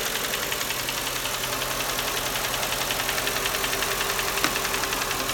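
Mercedes-Benz M113 5.0 L V8 idling with a fast, light tapping that keeps an even rhythm, and one sharper click about four seconds in. The owner is unsure whether the tapping is lifter noise; running the engine without the belt ruled out the accessories.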